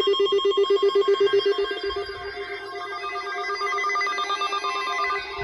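Weather-radio alert alarm sounding: a fast-pulsing low electronic beep that stops near the end, with a second, higher beeping tone joining about three seconds in.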